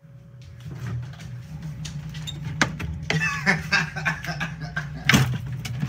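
A refrigerator door being opened and a plastic cake container handled, with a few sharp knocks, the loudest about five seconds in, over a steady low hum.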